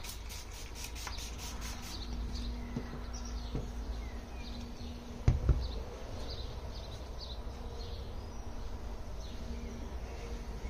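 Trigger sprayer of a spray-wax bottle spritzing onto a car roof in a quick run of about eight strokes, roughly four a second, over the first two seconds. A single loud knock comes about five seconds in, with birds chirping and a faint steady buzzing hum behind.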